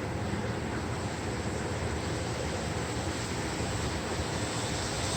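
Wind and sideways-blowing rain of a tropical storm, a steady rushing noise.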